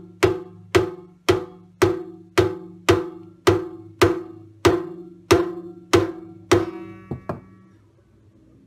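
Rubber mallet tapping a banjo's fifth-string tuner peg into its hole in the neck, about two blows a second, each followed by a short ringing tone. The blows seat the friction-fit, glued peg, and stop about seven seconds in after two lighter taps.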